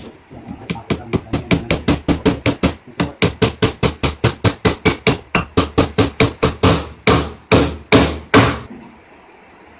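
Hammer driving nails into the edge of a plywood board: a quick run of strikes, about five a second, then four slower, louder blows before it stops.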